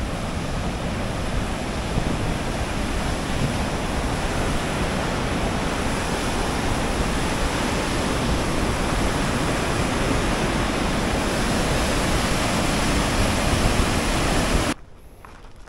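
Steady rush of whitewater cascading down a rocky channel, a loud even roar of falling water that stops abruptly near the end.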